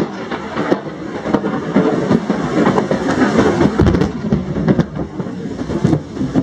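Heavy rain falling in a severe thunderstorm: a loud, dense, uneven patter of many drops striking hard surfaces.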